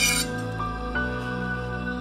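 Background instrumental music with soft held notes over a steady bass, and a brief bright hiss right at the start.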